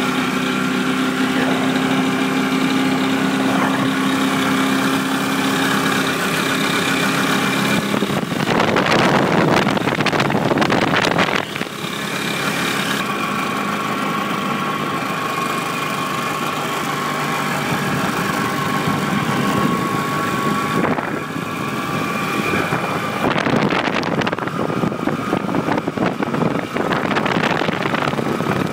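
Restored 1957 Vespa 125's single-cylinder two-stroke engine running as the scooter is ridden, heard from on board. Wind noise rushes over it twice, about a third of the way in and again near the end.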